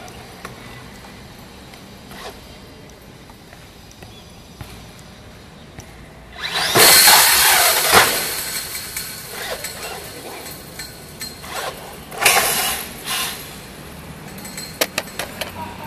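Thunder Tiger MT4 G3 electric RC monster truck driving in two loud spells, the first starting suddenly about six seconds in and the second about twelve seconds in, motor and tyre noise. A sharp knock comes about eight seconds in, and a few short clicks near the end.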